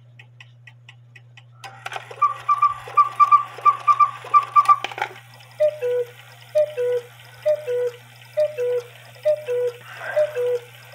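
Hubert Herr cuckoo quail clock tripped by hand to run its top-of-the-hour sequence. After a few quiet ticks, the quail sounds a quick high call in repeated groups for about three seconds, then the cuckoo takes over with its falling two-note call, repeated about once a second.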